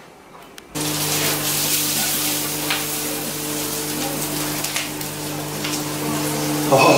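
Diced vegetables sizzling as they are tossed in a hot frying pan. The sizzle starts suddenly about a second in and holds steady, over a low steady hum.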